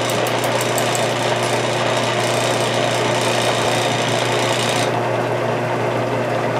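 Homemade wooden wood lathe running with a large, unbalanced spalted maple blank spinning on its faceplate, its motor and step-pulley belt drive giving a steady hum. A fast, regular ticking dies away within the first second, and the lathe shakes a little under the heavy load.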